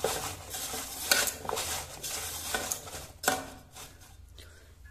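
Sliced carrot and radish pieces tossed by hand in a large aluminium bowl, rustling and knocking against the metal. The clatter grows quieter near the end.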